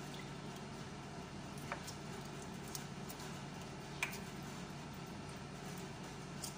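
Raw shrimp being peeled by hand in a bowl: faint wet squishing and a few small clicks of shell, the sharpest about four seconds in, over a steady low hum.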